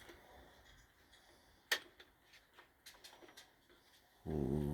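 A few small, sharp plastic clicks as the cassette deck's door parts are handled and pressed into place, one louder than the rest. Near the end a steady low hum starts suddenly.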